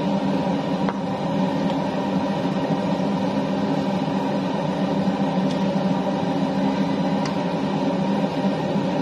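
Steady hum of a running kitchen appliance, with a few faint clicks from a spatula stirring rice in a stainless steel wok.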